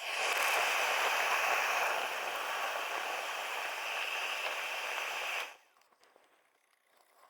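A steady rushing hiss that swells in at the start and cuts off suddenly about five and a half seconds in.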